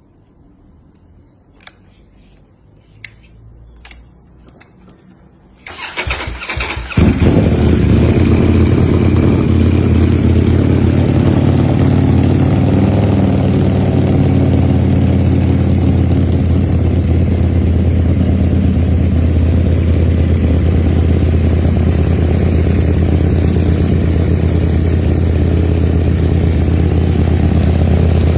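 Ducati Panigale V4 motorcycle on an Austin Racing exhaust being cold-started: two clicks, then the starter cranks briefly and the V4 catches about seven seconds in. It then idles loud and steady on the aftermarket exhaust.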